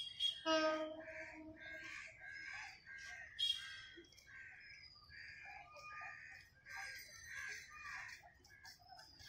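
Birds calling and chirping all through, with a louder, longer pitched call about half a second in and another sharp call about three and a half seconds in.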